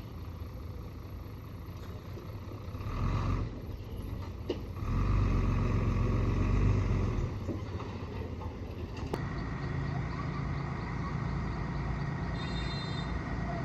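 Engine of an earthmoving vehicle running, working harder in two louder stretches, the first about 3 seconds in and the second from about 5 to 7 seconds in, with a couple of sharp clicks.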